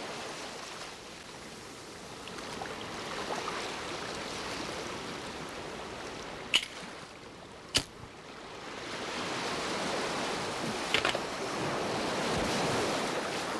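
Sea waves washing in and receding in a steady rush. A few sharp clicks cut through, two near the middle and a short cluster near the end as a lighter is struck.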